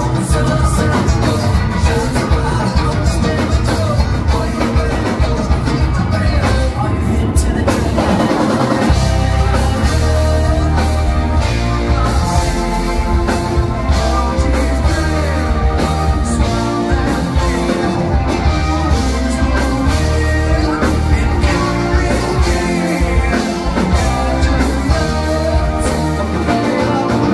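A rock band playing live on drum kit, electric guitars and bass. About eight seconds in the low end drops out briefly, then the full band comes back in.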